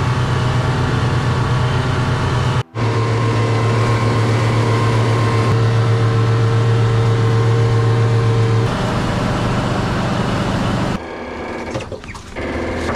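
Small fishing boat's engine running steadily under way, a loud even hum with water rushing past the hull. It cuts out for an instant about a third of the way in. Near the end it gives way to quieter sloshing water.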